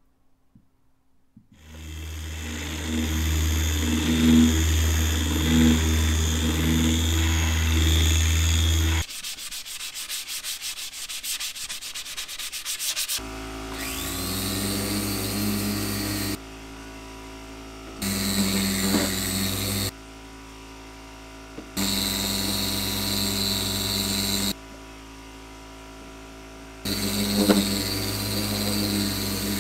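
Random orbital sander running against plywood in four stretches of two to three seconds, with a high motor whine. Before it, a loud steady machine sound and then a few seconds of rapid even ticking.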